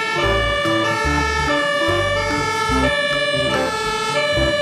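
Music: a melody of held electronic notes that step between several pitches, over a bass line.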